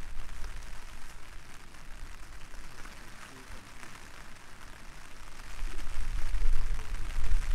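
Wind buffeting the microphone over a steady hiss of rain on a campsite, the wind rumble growing louder about six seconds in.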